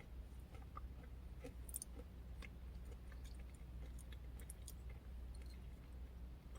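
Faint chewing with small scattered mouth clicks, someone eating a yogurt and granola parfait, over a low steady hum.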